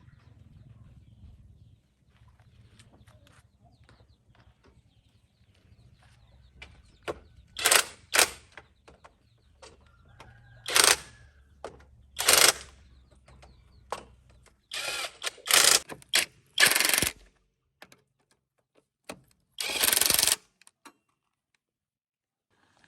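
Tool work on a tractor: a run of irregular, loud, sharp clatters and short noisy bursts, the longest about a second, over a faint low hum that stops about two-thirds of the way in.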